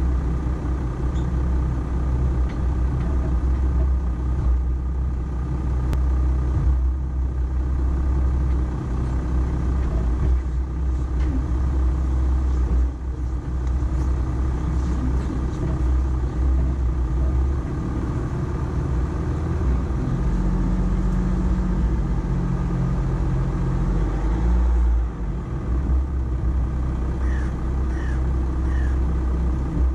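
Volkswagen Amarok pickup driving slowly over an off-road course, its engine and drivetrain giving a deep, steady rumble. A somewhat higher engine note comes in for a few seconds around twenty seconds in.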